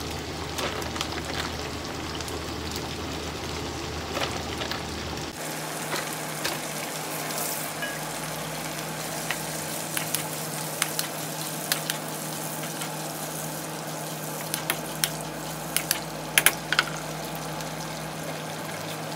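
Shrimp sizzling as they fry in a pan with onion, tomato and shrimp paste. A spatula scrapes and taps against the pan as they are stirred, with the sharpest knocks about three-quarters of the way through.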